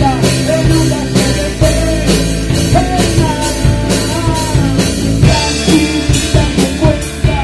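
Rock band playing live and loud: a drum kit keeping a steady beat of about three cymbal and snare hits a second under electric guitar, with a melodic line that bends in pitch.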